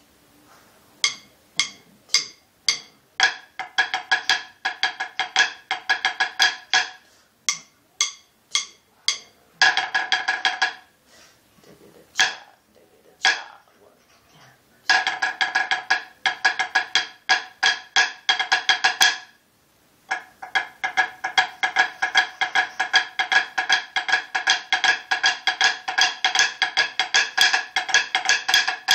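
Snare drum played with wooden sticks, practising the sixes rudiment: short runs of fast, even strokes alternating with spaced single strokes. There is a near pause about twelve seconds in, and from about twenty seconds on the strokes run fast and unbroken.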